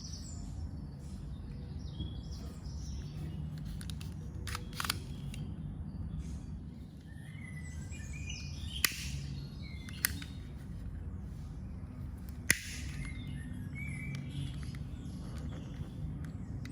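Birds chirping in the background over a steady low hum, with three sharp clicks about nine, ten and twelve and a half seconds in.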